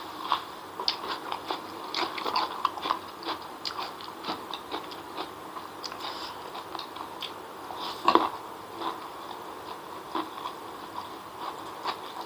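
Close-miked chewing and wet mouth sounds of a person eating spicy chicken feet and fried noodles by hand: a run of short clicks and smacks, with one louder smack about eight seconds in.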